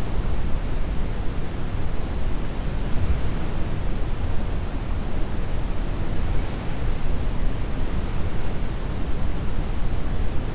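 Steady brown noise, a deep hiss heaviest in the low end, mixed with soft ocean waves; a wave washes in about six and a half seconds in.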